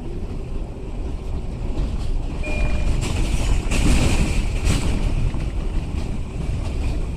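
New York City subway 6 train running on elevated track, heard from inside the car: a steady rumble and rattle of wheels on rail. A brief high tone sounds about two and a half seconds in, and the noise grows louder around four seconds in.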